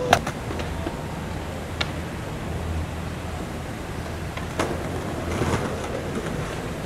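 Outdoor city background noise: a steady low hum, with a sharp click just after the start and a few fainter clicks later.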